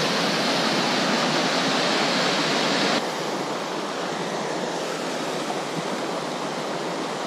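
Rushing water of a small cascade on a mountain creek, pouring over granite: a steady rush that drops a step quieter about three seconds in.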